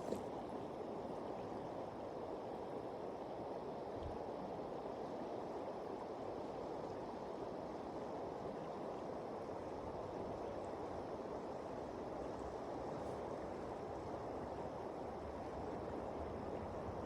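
Steady rush of river current, an even noise with no breaks.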